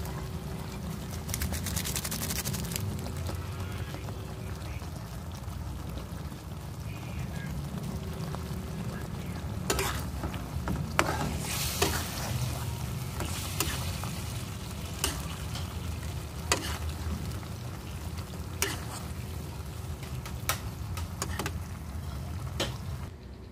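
Fried tilapia simmering in escabeche sauce in a pan, the sauce bubbling and sizzling steadily. From about ten seconds in, a spatula knocks and scrapes against the pan several times, in short sharp clicks.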